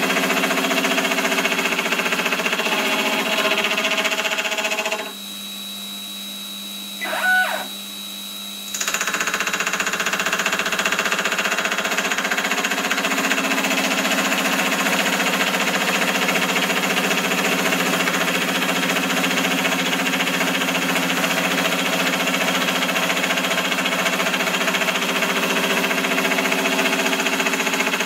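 Belt-driven milling spindle running with its cutter cutting gear teeth into an aluminium blank: a steady, loud machining whine. About five seconds in the cutting noise drops away for roughly four seconds, leaving the motor humming, with a short pitched whirr in the middle; then the cut resumes.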